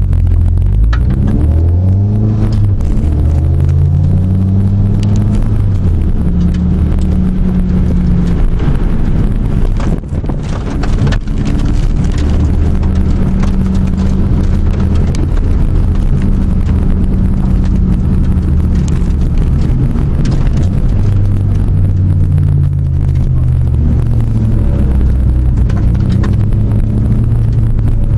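2006 Subaru Impreza WRX STI's turbocharged flat-four engine heard from inside the cabin as the car drives. The revs climb through the gears over the first few seconds, then hold fairly steady.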